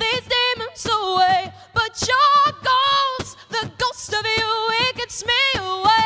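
A woman singing, in short phrases with held notes that bend in pitch.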